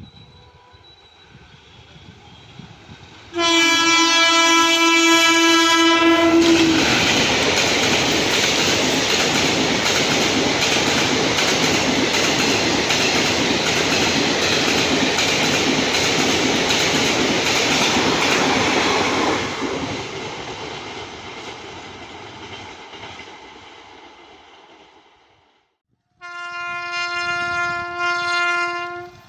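A WAP-4 electric locomotive sounds a steady horn for about three seconds, then the train passes at speed with a loud rush and clatter of wheels on the track that fades away. After a short break, another locomotive horn sounds for about three seconds near the end.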